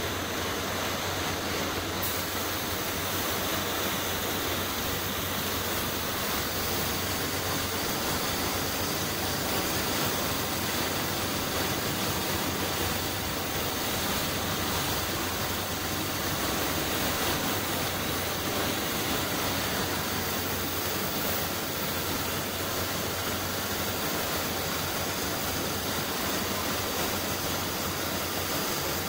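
Steady hiss of compressed air from a gravity-feed paint spray gun spraying paint, continuous and even throughout.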